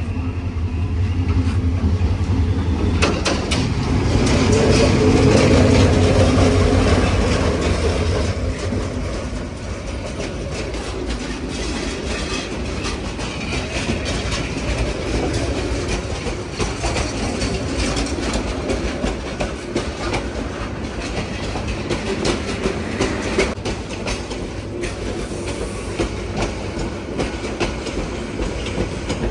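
An intercity express train arriving, hauled by a diesel locomotive. The locomotive's engine drone is loudest as it passes, about four to eight seconds in. After that the coaches roll by with a steady rumble and a rhythmic clickety-clack of wheels over the rail joints.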